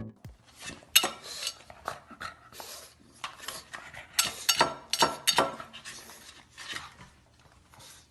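Irregular clatter of small hard objects clinking and knocking, several sharp clinks with quieter rattling between them.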